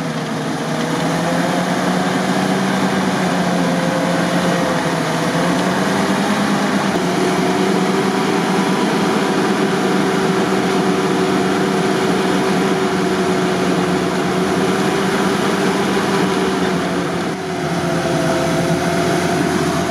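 UAZ-469 off-roader's engine held at steady, raised revs under load as the vehicle climbs a snowy, icy slope, its pitch drifting only slightly, with a brief drop in level near the end.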